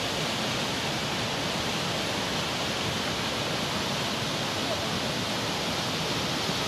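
Steady rushing of a fast, muddy flash-flood torrent pouring through a village between buildings.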